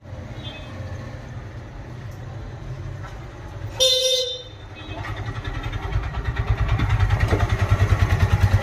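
Street traffic with a steady low engine hum. A vehicle horn sounds briefly about four seconds in, and an engine's rapid low pulsing grows louder through the second half.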